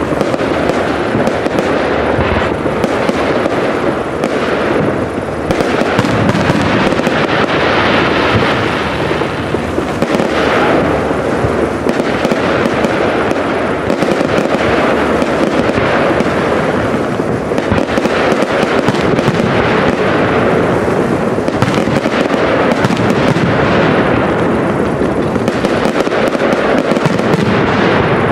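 Fireworks going off without a break: many shell bursts and crackles overlapping into one steady, loud wash of noise with no single bang standing out.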